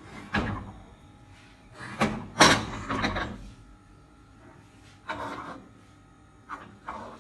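A series of irregular knocks and clunks from kitchen items being handled and set down, about seven in all, the loudest about two and a half seconds in.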